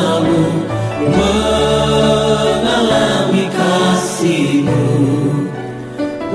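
Christian worship song: choir voices singing over a backing with steady, held bass notes.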